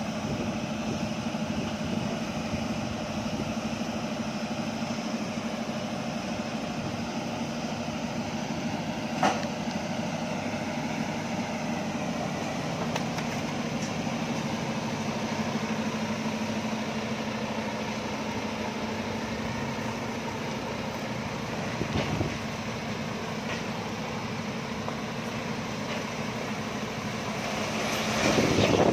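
Heavy diesel engine running steadily at idle, with a single sharp knock about nine seconds in and a thud near 22 seconds, swelling louder just before the end.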